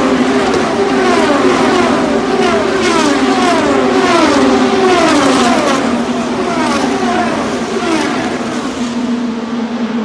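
IndyCar race cars with 2.2-litre twin-turbo V6 engines running past one after another down the front straight, each engine note falling in pitch as it goes by. The stream of cars ends about eight seconds in, leaving a steady engine drone.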